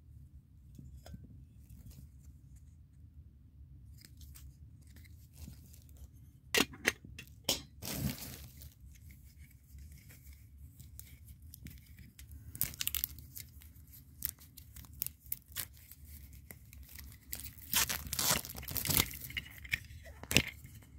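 A Funko Soda can's packaging being torn and peeled open by hand, in crackling, tearing bursts: a first cluster about six seconds in, then more from about twelve seconds in, busiest near the end.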